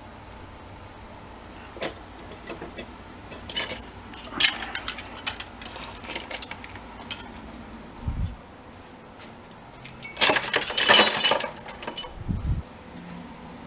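Small pieces of scrap metal clinking and clattering as they are handled and sorted, with a longer, louder clatter about ten seconds in and a couple of dull thumps.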